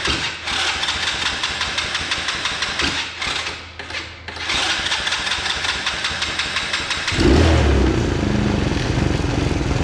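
A 125cc Chinese ATV engine cranking over in several bursts with short pauses, then catching about seven seconds in and running louder and unevenly. This comes right after a carburettor clean with the adjustment screw reset to four turns.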